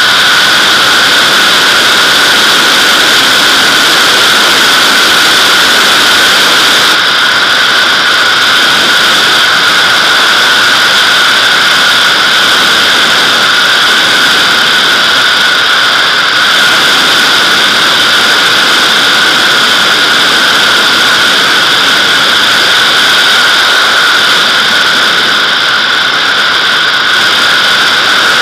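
Airflow rushing over a camera mounted outside on the fuselage of a Nimbus-2 glider in flight: a loud, steady rush of wind carrying two steady high whistling tones.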